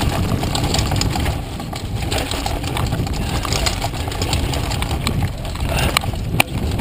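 Mountain bike riding fast down a dirt trail: a steady rough rumble of wind and tyres on dirt, with the bike rattling and clicking over bumps and a sharp clack near the end.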